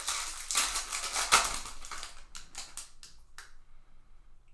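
Crinkling of a trading-card pack's foil wrapper as it is torn open, loudest about a second in, followed by a few short separate crackles.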